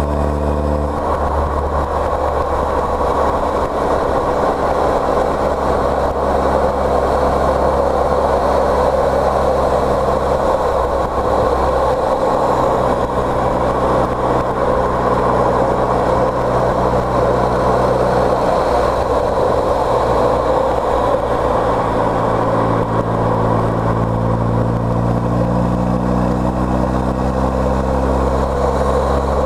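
A car driving on the road: a steady engine drone under loud tyre and road noise. The engine note shifts about a second in and climbs slowly near the end as the car speeds up.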